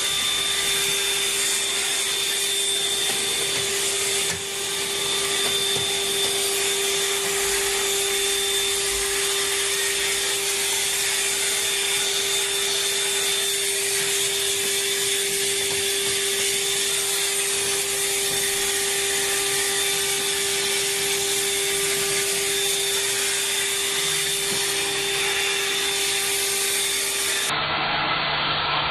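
Household vacuum cleaner running steadily, its motor giving a steady whine over the rush of air. The level dips briefly about four seconds in, and near the end the sound changes abruptly to a lower hum.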